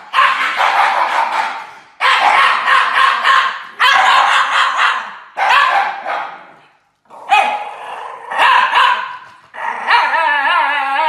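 Shiba Inu dogs howling with their heads thrown back: a run of about seven harsh, loud calls, each starting sharply and fading away, with short breaks between them. The last call near the end is a clearer howl that wavers in pitch.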